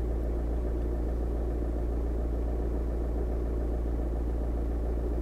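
Skoda Octavia engine idling steadily, heard from inside the cabin as a constant low hum.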